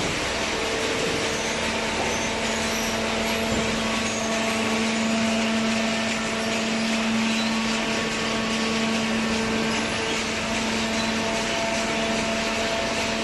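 Hydraulic baling press running: its motor and pump make a constant hum with a few steady tones over even mechanical noise.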